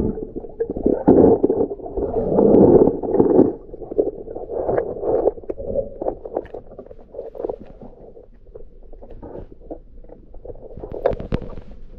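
Muffled underwater water movement heard through a submerged microphone: an uneven rumble and swirl, loudest in the first three and a half seconds, with scattered small knocks and clicks.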